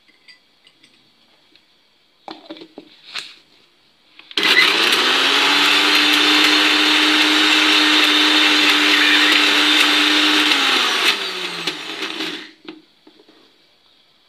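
Kitchen mixer grinder's motor running for about seven seconds, its steel jar grinding roasted peanuts and oil into creamy peanut butter, then winding down with a falling hum. A few short knocks come a couple of seconds before it starts.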